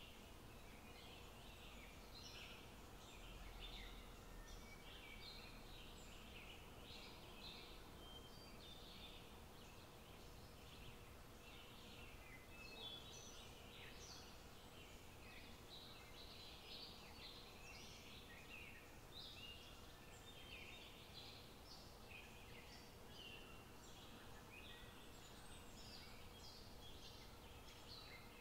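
Faint chirping and twittering of small birds, a steady run of short high notes, over a faint steady hum.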